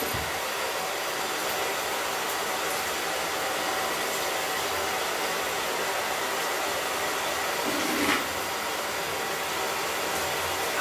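Bathroom sink faucet running steadily, the stream splashing into the basin and over cupped hands.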